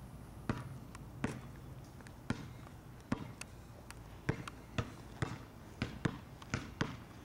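Basketball bouncing on asphalt: about a dozen sharp bounces at an uneven pace, several coming in quick pairs.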